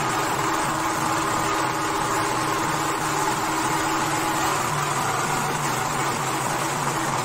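A group of dollu barrel drums played together, heard as a loud, steady, distorted wash in which single beats cannot be picked out.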